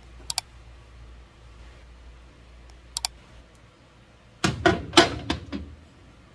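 Light metal clinks as burner caps are set on a gas stove, a pair near the start and another about three seconds in, then a cluster of louder metal clanks about four and a half seconds in as a metal pan-support grate is set down over the burners.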